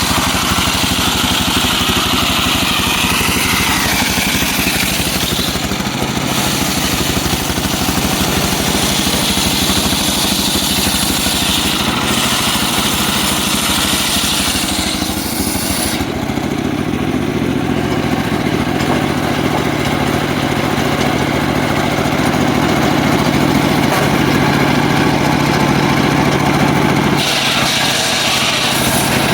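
Engine-driven homemade circular sawmill running steadily while its blade cuts through a mahogany log, with a high-pitched cutting sound over the engine. About halfway through the high cutting sound drops away and the engine runs on, and the sound changes again near the end.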